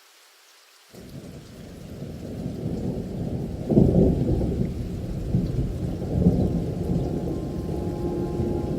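Thunder rumbling over rain. The thunder comes in suddenly about a second in and swells to its loudest near four seconds. A held music note starts near the end.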